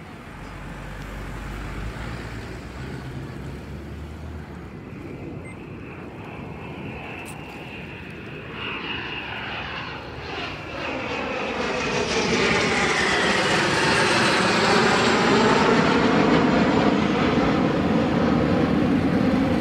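Display jet flying past: its engine noise is faint at first, swells from about ten seconds in and stays loud, with a sweeping, phasing whoosh as it passes.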